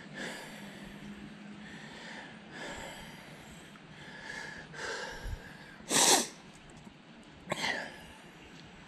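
A person breathing and sniffing close to the microphone: several short breathy puffs a couple of seconds apart, the loudest about six seconds in and another about a second and a half later.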